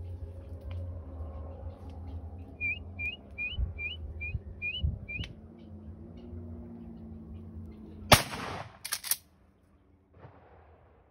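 A bird calls a quick run of seven short rising chirps. About eight seconds in comes a very loud shotgun blast, followed moments later by a second, shorter blast.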